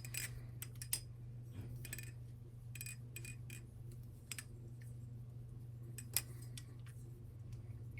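Balisong (butterfly knife) being flipped: scattered sharp metallic clicks and clacks of the handles and blade knocking together at irregular intervals, over a steady low hum.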